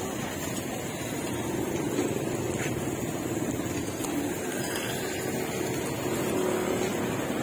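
Steady street traffic noise, a continuous hum of passing vehicles with no single event standing out.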